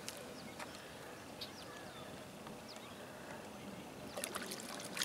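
Light splashing of shallow lake water as a common carp is held in the water and released, starting about four seconds in, over quiet outdoor ambience with a few faint bird chirps.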